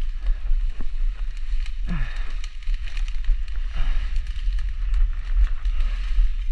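A person forcing a way over dense ferns and brush: rustling and snapping of vegetation, with a heavy low rumble from the GoPro being jostled. A brief low falling groan of effort comes about two seconds in.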